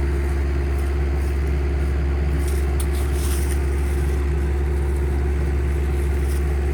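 Kubota KX030 mini excavator's diesel engine idling with a steady low drone that holds even throughout.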